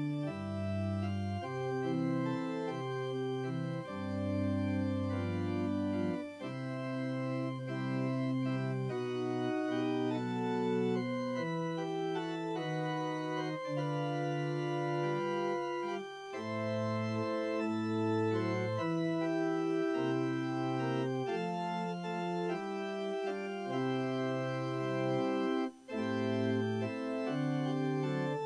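Organ postlude closing the service: held chords that change every second or two, a slow-moving hymn-style piece.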